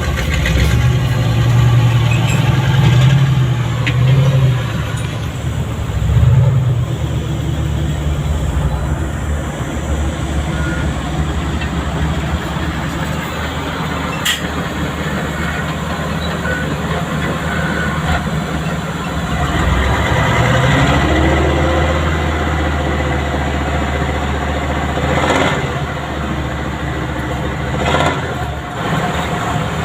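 Heavy diesel engines of dump trucks and bulldozers working, the engine note swelling and easing under load, with a few sharp metallic knocks.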